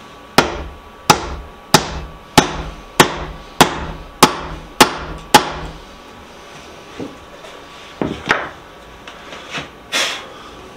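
Steel-headed hammer striking the wooden seat of a stitching horse: nine sharp blows about 0.6 s apart, then a few lighter knocks near the end.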